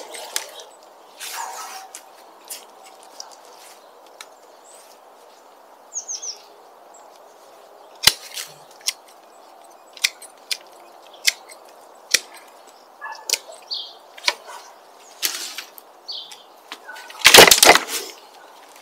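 Thin branches being trimmed and handled: scattered sharp snaps and clicks, then a loud rustle of twigs near the end. A short bird chirp about six seconds in.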